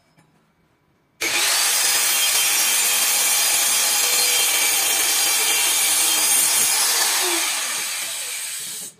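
Handheld electric circular saw starting abruptly about a second in and running steadily as it cuts through a white laminated board. Its motor whine falls in pitch about seven seconds in, and the sound cuts off shortly before the end.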